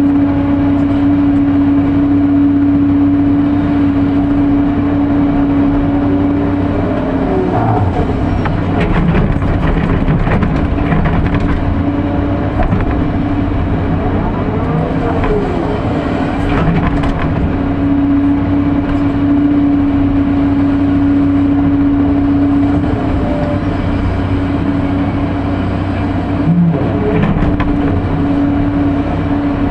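Sany SY215 hydraulic excavator working with its diesel engine running at a steady drone, while it digs and loads material into a dump truck. Through the middle, the drone gives way to irregular clanks, scraping and shifts in engine pitch.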